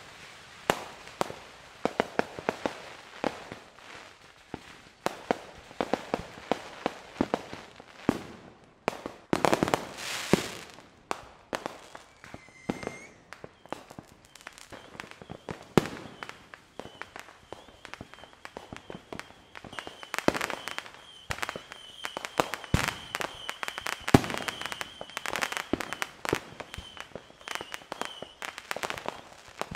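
Many fireworks and firecrackers going off at different distances: an irregular, nonstop scatter of sharp pops and bangs, some loud and close, most far off. A hissing burst comes about ten seconds in.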